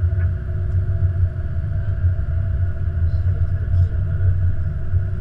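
Steady low rumble on the Airbus A330-200 flight deck as the airliner rolls along the runway, with faint steady tones above it.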